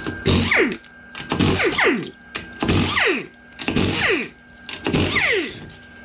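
Power impact wrench spinning off the five 22 mm wheel lug nuts: five short bursts about a second apart, each ending in a falling whine as the motor spins down.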